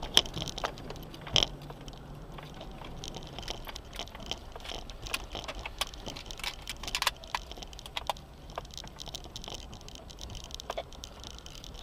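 Off-road vehicle driving slowly over a rough gravel track: a low steady engine hum with frequent irregular rattles, clicks and knocks from the cabin and the stones under the tyres, the loudest knocks near the start.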